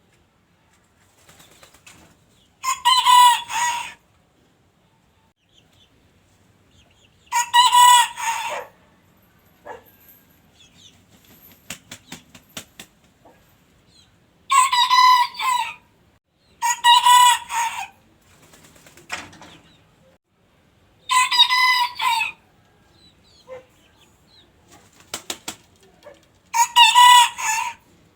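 Rooster crowing six times, each crow a loud call of about a second, spaced unevenly several seconds apart, with faint short sounds in the gaps.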